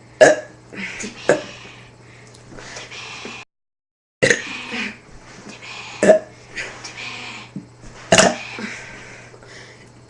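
A boy burping out letters of the alphabet: about five short, sudden burps spaced a second or two apart, each trailing off into a voiced sound.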